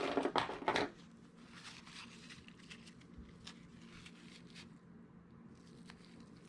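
Hands handling small folding-knife parts during reassembly: a scratchy burst of scraping and clicks in the first second, then only faint scattered ticks over a low steady hum.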